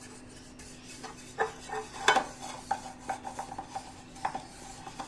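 Silicone pastry brush spreading oil around the inside of an aluminium cake pan, greasing it: scattered brush strokes and light scrapes and knocks as the pan is turned by hand, over a faint steady hum.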